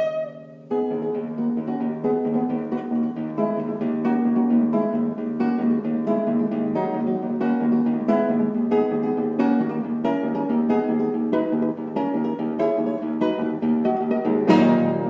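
Acoustic guitar played fingerstyle: a continuous run of plucked notes after a brief pause about half a second in, ending with a louder strummed chord near the end that rings and fades.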